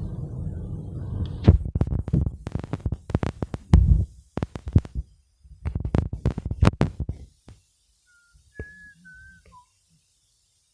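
A run of irregular, loud thumps and knocks over a low rumble for the first several seconds, then near silence with a few short high whistle-like tones.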